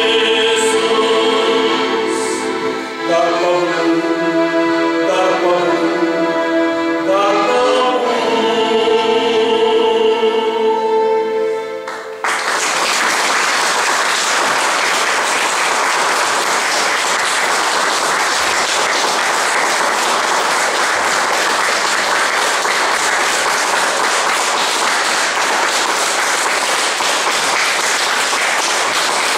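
Men's vocal ensemble singing sustained chords, cut off abruptly about twelve seconds in. Steady audience applause follows and runs on.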